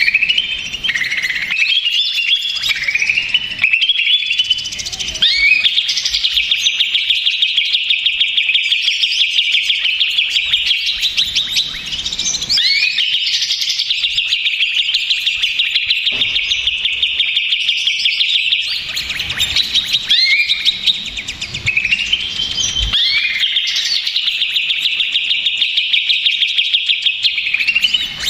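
Cucak ijo (green leafbird) singing a noisy, agitated song: long, high-pitched runs of fast chattering notes mixed with rising and falling swooping whistles, broken by a few short pauses.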